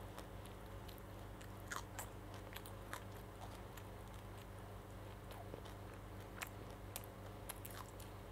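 A child chewing a soft bread roll filled with chicken and mayonnaise, mouth closed: faint wet mouth clicks and smacks, scattered about once a second, over a steady low hum.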